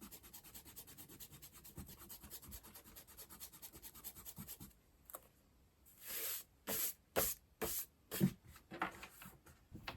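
Marker scratching on sketchbook paper. A fast run of short back-and-forth colouring strokes gives way, about halfway through, to roughly six separate, longer strokes with short pauses between them.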